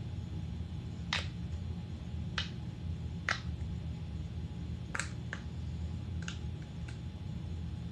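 Pop it fidget toy's bubbles being pressed, giving sharp single pops, about seven spaced irregularly over the stretch.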